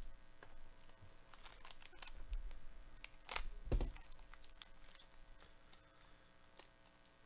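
Foil trading-card pack crinkling and tearing as it is handled and opened, in scattered short crackles, the loudest about three and a half seconds in.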